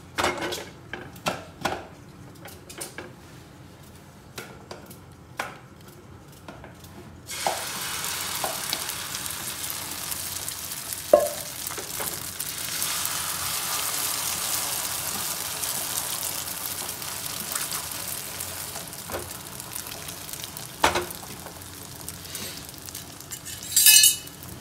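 Scattered clinks and taps of a utensil in a bowl or pan. About seven seconds in, a steady sizzle starts suddenly as the omelette's egg mixture frys in hot oil in the pan. A few knocks come over the sizzle, and there is a brief metallic clatter near the end.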